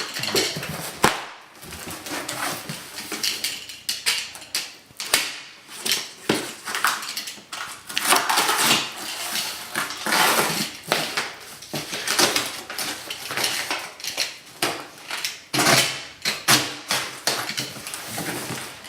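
A taped cardboard shipping box being worked open by hand: irregular tearing, scraping and rustling of cardboard and packing tape, with sharp clicks and knocks throughout.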